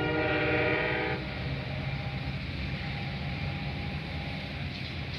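Metra commuter train's horn sounding one short chord blast that ends about a second in, over the steady low rumble of the receding train, its diesel locomotive pushing from the rear.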